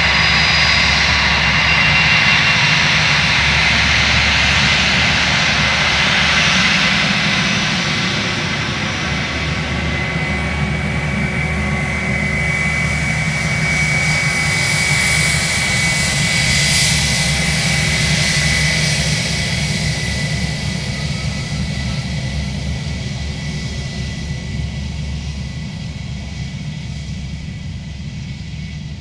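Twin jet engines of an Airbus A320 at low taxi power: a steady high whine over hiss and a low rumble. It grows hissier as the aircraft passes side-on, then fades as it moves away in the last third.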